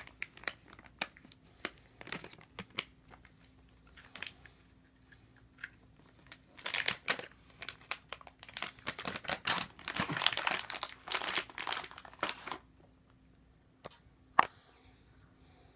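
Plastic packaging crinkling as it is handled: scattered ticks and rustles at first, a dense spell of crinkling in the middle, and one sharp click near the end.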